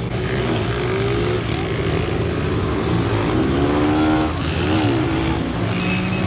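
Motorcycle engines running and revving, one climbing steeply in pitch about three to four seconds in, then dropping away, over a steady low engine drone.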